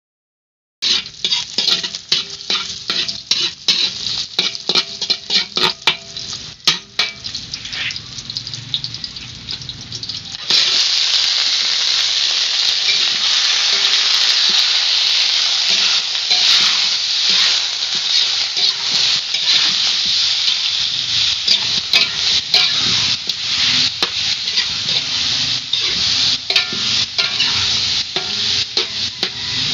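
Chicken pieces frying in oil in a large metal wok, stirred with a metal spoon that scrapes and clicks against the pan. The sizzle turns louder and steadier about ten seconds in.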